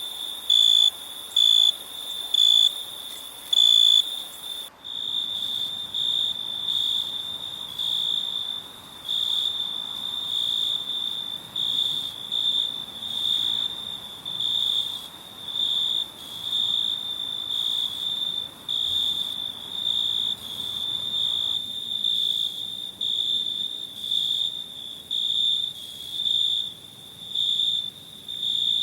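Crickets chirping: a high, thin, pure-pitched trill broken into regular pulses, a little more than one a second. About five seconds in it switches to a different recording with longer, closer-spaced pulses.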